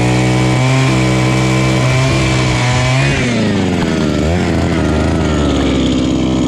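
Gas-powered ice auger engine running at high speed as the auger drills a hole through lake ice; its speed drops about three seconds in and wavers lower for the rest of the hole.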